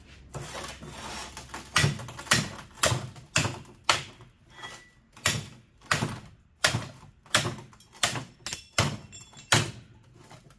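Repeated hammer blows on a scrap electric fan motor, about two a second, beating on a stuck part to knock it loose.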